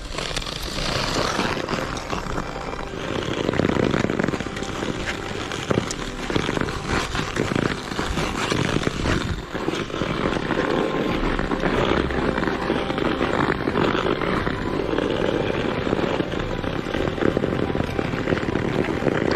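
Ice skates scraping and gliding on natural ice in repeated strokes, with sharp clicks from pole tips striking the ice.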